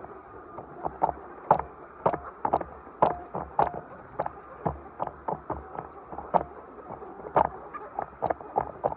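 A run of irregular sharp clicks and knocks, a few a second, over a low steady background noise.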